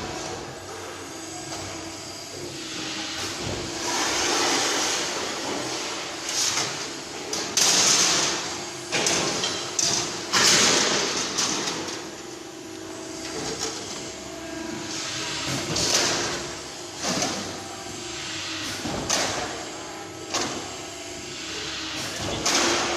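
A 6-metre bending machine (press brake) at work bending steel plate into an octagonal pole section: a steady machine hum with repeated swells of rushing, hissing noise and a few sharp metallic knocks.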